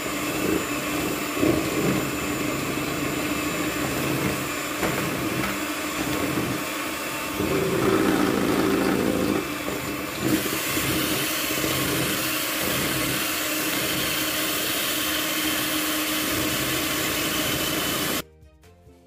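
Miyako electric mixer's motor running steadily, its beaters whisking cake batter in a plastic bowl, then switched off suddenly near the end.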